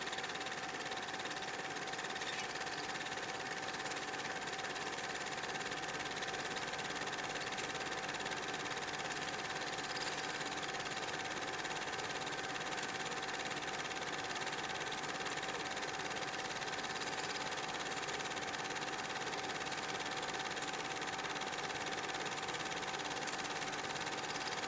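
A small electric motor running steadily with an even hum and a high whine, unchanging throughout.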